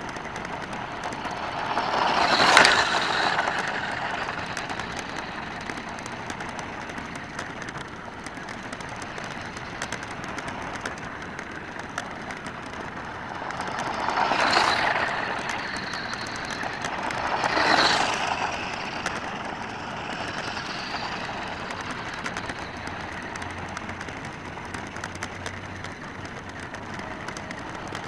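WPL D12 radio-controlled kei truck driving on gravel: its small electric motor and gears whine and its tyres crunch. The sound swells three times as the truck comes nearer, once about two and a half seconds in and twice close together near the middle.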